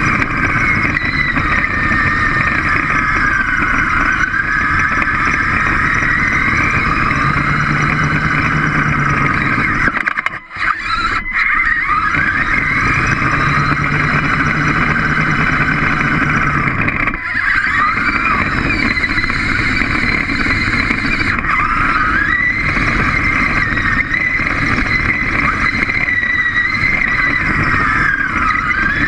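Small robot's electric drive motors whining, the pitch sliding up and down as it speeds up, slows and turns. The sound cuts out briefly about ten seconds in.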